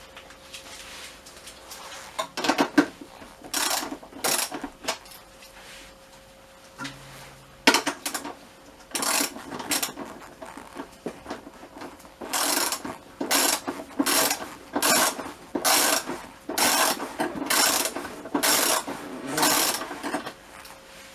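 A ratchet wrench clicks in repeated short strokes as the scooter seat bolts are undone. There are a few scattered strokes at first, then a steady run of about one stroke a second over the last eight seconds.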